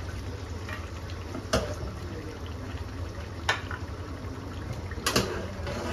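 Mutton curry bubbling steadily in a karahi, over a low steady hum, with three sharp clicks or knocks about two seconds apart.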